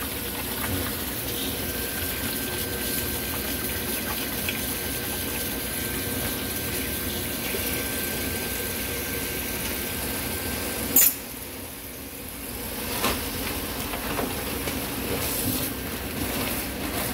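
Kitchen tap running steadily into a mesh strainer of horned turban shells in a stainless steel sink, the water splashing over the shells. About eleven seconds in there is a sharp clack, and the running water is quieter for a couple of seconds before it picks up again.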